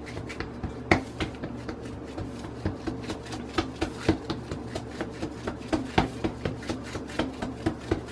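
Hand patting and pressing tortilla dough flat on a plastic sheet: a run of soft, irregular taps and plastic crinkles, a few per second, over a low steady hum.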